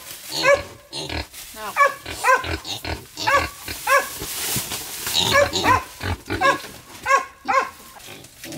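Several animals calling over and over: short pitched calls that rise and fall, about two a second, with a brief lull about halfway through.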